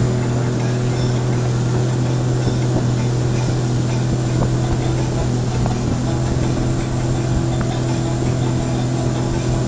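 Speedboat engine running steadily at speed, an even drone, over a constant rush of wind and water.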